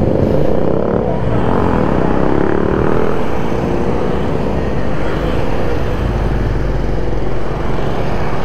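BMW R1250GS boxer-twin engine under way, its pitch climbing over the first few seconds as the bike accelerates, then holding steady. Wind and road noise are heavy on the microphone, with a low rumble growing about halfway through.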